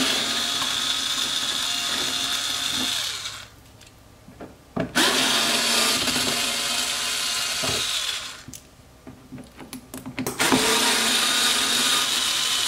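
Cordless drill-driver running in three spells of about three seconds each, with short pauses between, backing out three screws at a car's front wheel arch.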